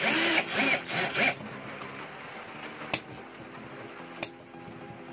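Cordless drill-driver turning a screw in an aluminium heatsink, its motor whining and rising and falling in pitch for about the first second and a half. Then two sharp clicks, about three and four seconds in.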